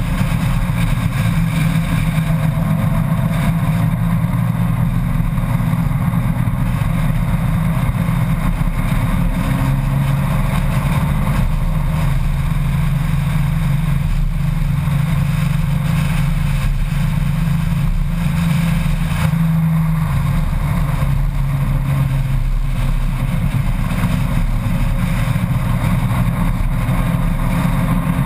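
Honda Gold Wing motorcycle engine running at road speed through curves, its note shifting a few times as the throttle changes, over steady wind and road noise.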